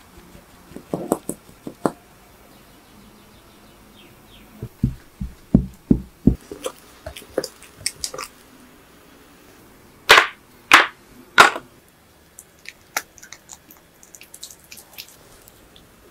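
Kitchen handling sounds of cocoa powder being sifted into a glass bowl and a spatula working thick chocolate batter. There are a few light taps, then a run of soft low thuds, then three loud scraping strokes, with faint clicks near the end.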